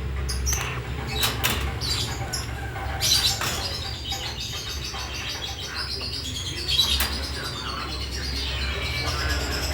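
Nightjar chirping and fluttering its wings, with scattered clicks, over a steady low hum.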